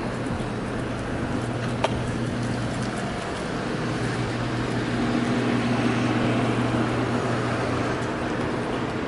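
Steady low mechanical hum over a wash of city background noise, swelling a little for a few seconds past the middle, with one sharp click about two seconds in.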